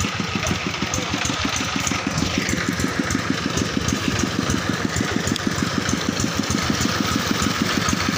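Single-cylinder diesel engine of a two-wheel walking tractor idling with a steady, rapid, even beat.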